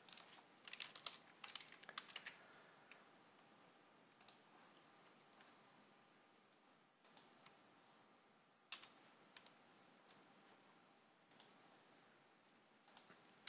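Faint clicks of a computer mouse and keyboard over quiet room hiss: a quick run of clicks in the first couple of seconds, then single clicks every few seconds.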